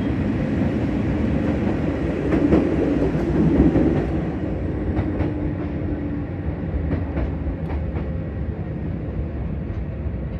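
Electric train heard from inside, running on the rails: a steady low rumble with scattered clicks from the wheels over the track, a little quieter after about four seconds.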